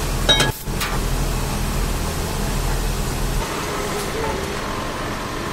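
Steady factory machinery noise: a low motor hum under an even hiss, with a few clicks in the first second; the hum drops away about three and a half seconds in while the hiss goes on.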